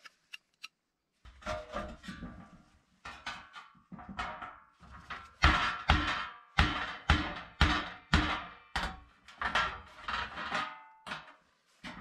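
Repeated hard blows from a hand tool, each with a short ring: a few uneven strikes early on, then a steady run of about two a second.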